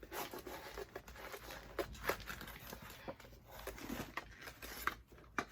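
Rustling and crinkling of new Air Jordan 1 sneakers and their laces being handled, with scattered small clicks and taps.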